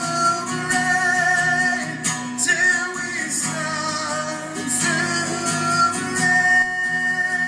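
Live song: a male voice sings long held notes over an acoustic guitar.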